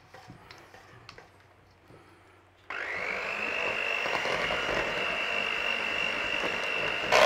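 Faint scraping of a silicone spatula against a stainless steel bowl, then an electric hand mixer switched on a little under three seconds in, running steadily with a high whine as its beaters churn thick cake batter; it gets briefly louder right at the end.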